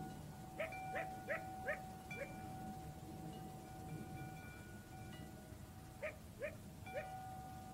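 Metal tube wind chime ringing with steady, overlapping tones. A dog barks over it, in a quick run of five barks starting about half a second in and three more around six seconds in.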